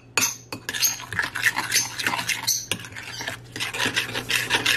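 Metal spoon stirring a wet garlic, sofrito and oil seasoning paste in a ceramic bowl. It makes a quick, irregular run of clinks and scrapes against the bowl.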